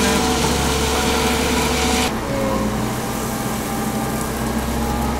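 Ajax Argo 4500 self-loading concrete mixer's diesel engine running steadily with a whine, while gravel pours from the raised loading bucket into the drum. The rushing hiss of the gravel stops suddenly about two seconds in, leaving the engine running alone.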